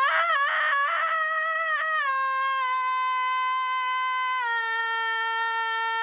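A young woman belting one long sung note as loud as she can, a rough-sounding held tone that wavers at first and then steps slightly lower in pitch a few times as she sustains it.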